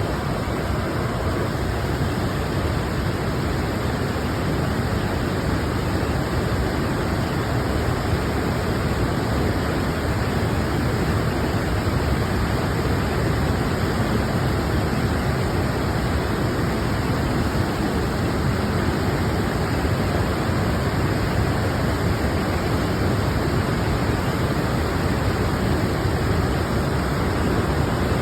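Waterfall: falling water rushing steadily and evenly, without a break.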